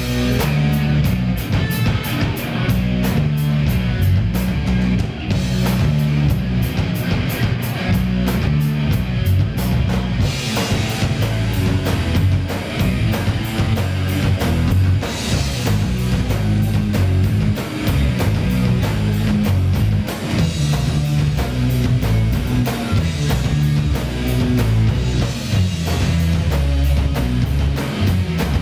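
Live rock band playing loud, heavy rock: electric guitars through Marshall amplifiers over a driving drum kit, steady and unbroken.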